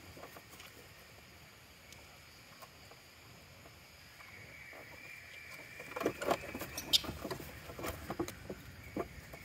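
Macaques moving about on a motorcycle: a cluster of light taps, knocks and scratches from their hands and feet on the bike's plastic bodywork and fittings, loudest about seven seconds in, where there is also a brief high squeak. A faint high steady tone runs through the second half.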